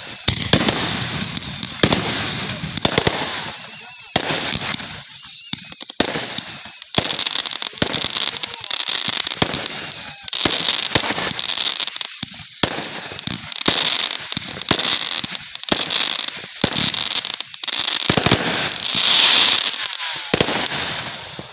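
Fireworks going off: a dense run of sharp pops and crackles, with a wavering high whistle running through most of it until near the end and a louder hiss about nineteen seconds in.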